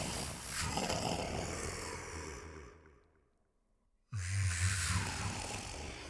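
Dragon roar sound effect that fades out over about three seconds; after about a second of silence, a second roar starts abruptly.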